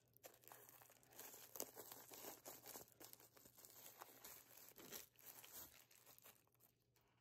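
Faint crinkling and tearing of a silver plastic mailer bag as it is opened: a scatter of soft crackles over a few seconds.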